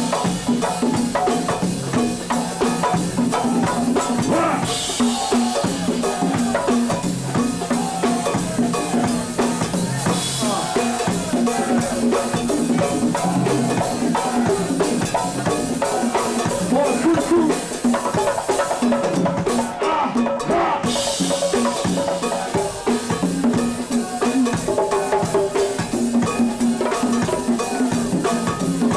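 Go-go band playing live: a steady percussion groove of congas over a drum kit beat.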